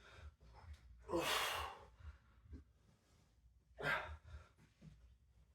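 A man breathing hard from exertion during a set of curl ups, with a long forceful exhale about a second in and a shorter one near four seconds.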